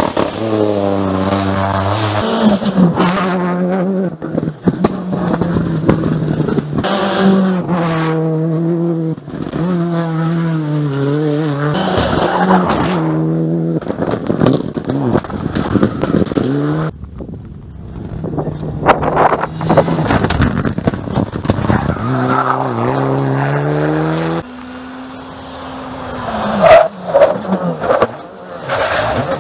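Rally cars driven flat out one after another, engines revving hard and dropping back through gear changes, with short sharp cracks from the exhausts; the loudest cracks come near the end.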